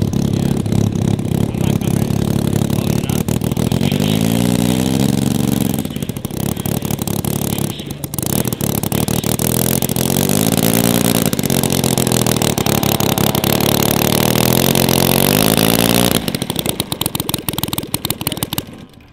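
KOLM IL150 150cc three-cylinder four-stroke model aircraft engine running at low throttle while taxiing, its pitch rising and falling twice with throttle blips. About 16 seconds in the engine stops, followed by a few seconds of clicks and rattles.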